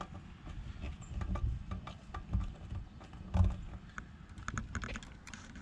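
Wires being handled and pushed into a car amplifier's terminal block: scattered small clicks and rustling, with a quick run of clicks about four and a half seconds in.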